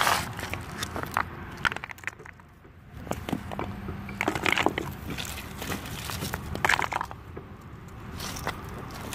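Loose rock and gravel crunching and scraping underfoot or under hand, in a handful of short bursts with small clicks of stone on stone.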